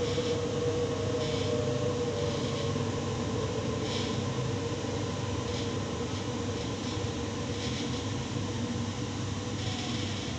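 Interior of a Waratah Series 2 electric train running: steady rumble of the running gear under a motor whine that slowly falls in pitch as the train slows. Short, higher-pitched noises come every second or two.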